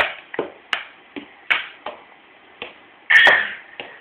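Badminton racket being banged on a hard surface: about ten sharp taps at uneven intervals, with one louder, longer knock about three seconds in.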